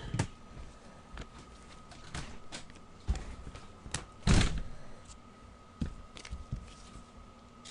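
Trading cards being handled and laid down on a tabletop: scattered light taps and soft knocks, with one louder thump and scrape a little past halfway.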